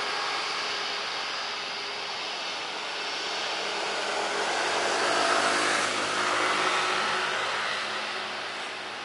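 Jet engines of a Batik Air Airbus A320-200 rolling down the runway after landing, a steady rumble and hiss that grows louder about five seconds in and then eases off.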